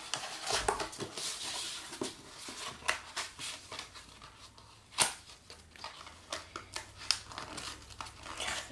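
Kraft cardboard folder being opened and handled: rustling, scraping and sliding of cardboard and paper, with many small clicks and one sharper click about five seconds in.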